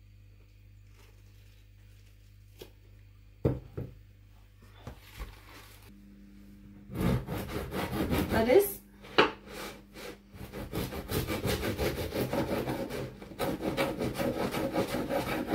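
A long knife sawing through a crusty loaf of bread on a wooden cutting board: quick back-and-forth rasping strokes through the crust. The sawing starts about seven seconds in, after a couple of knocks on the board.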